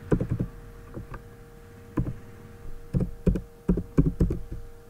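Computer keyboard keystrokes: irregular short runs of clicky taps while code is typed, over a steady low electrical hum.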